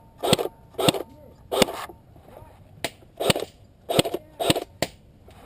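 Airsoft gun fired in single shots, about eight sharp cracks at uneven spacing over a few seconds.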